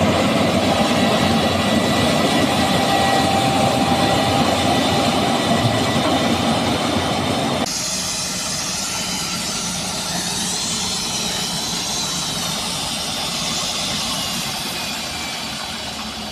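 Combine harvester running under load: a dense, steady mechanical clatter and rumble with a steady whine over it. About eight seconds in the sound changes abruptly, the rumble dropping back and a higher wavering whine taking over.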